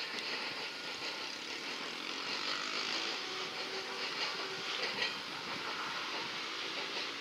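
Freight train running in the distance: a steady drone of locomotive engine and wheels on the rails.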